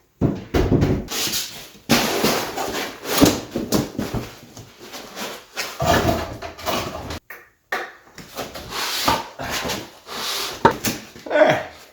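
Irregular scraping, knocking and shuffling of heavy parts being shifted and dragged while a stored transmission is dug out, with hard breathing from the effort.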